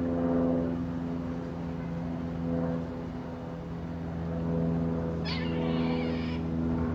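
A steady, droning hum of several level tones, with a high animal call lasting about a second about five seconds in.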